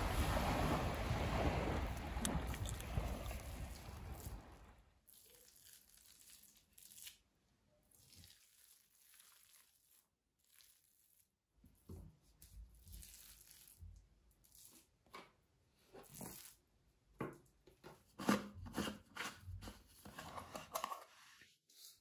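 Steady wind-and-water noise for about the first four and a half seconds, then it cuts to quiet room tone. Scattered small clicks, crinkles and rustles follow, growing busier near the end, like packaging or small objects being handled.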